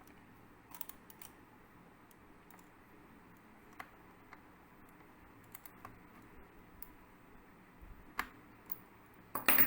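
Faint, scattered clicks and taps of a small screwdriver and the laptop's plastic case as the screw holding the hard-disk caddy in the optical-drive bay is tightened, with a couple of sharper clicks near the end.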